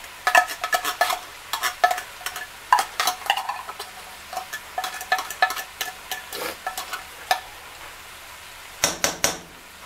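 A metal utensil clinking and scraping against the inside of a tin can in quick, irregular taps, with a louder cluster of clinks about nine seconds in.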